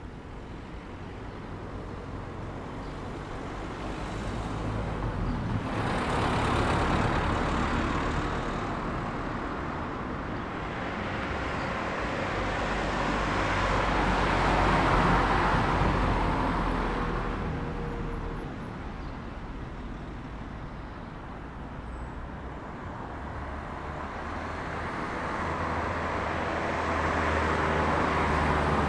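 Street traffic: cars passing one after another, each swelling up and fading away over a steady low engine rumble. The louder passes come about six seconds in, around the middle, and near the end.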